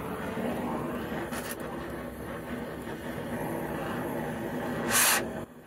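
Oxy-fuel cutting torch flame running with a steady hiss as it is played on a stubborn nut to cut it off. About five seconds in, a brief much louder burst of hiss, then the sound drops off sharply.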